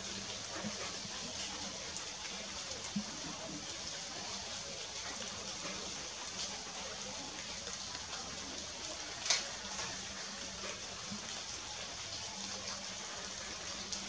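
Steady background hiss with scattered small ticks and one sharper tick about nine seconds in, over a faint low hum that comes and goes.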